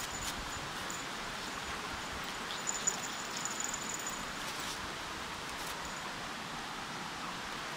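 Steady rush of a shallow river running over gravel, with a few light clicks about three seconds in and a faint thin high tone coming and going.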